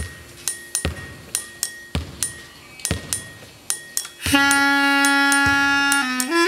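Snare drum struck with sticks in a loose, uneven rhythm, about two sharp strokes a second, some of them doubled. About two-thirds of the way through, a clarinet comes in with one long held low note that dips and bends up briefly near the end, while the drum strokes go on beneath it.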